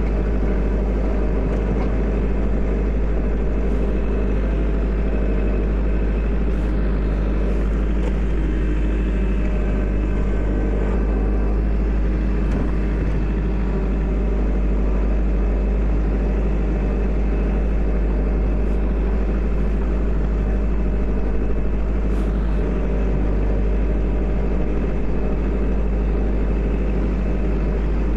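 Kubota L4701 tractor's diesel engine running steadily while the tractor pushes snow into a line with a front snow pusher.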